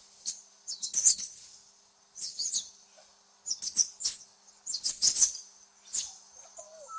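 Squirrel chattering: short, very high-pitched chirping bursts, each a quick run of several chirps, coming about once a second.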